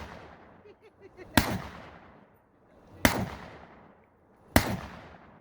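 Three single shots from a Draco AK pistol firing 7.62 rounds, about a second and a half apart, each followed by a fading echo.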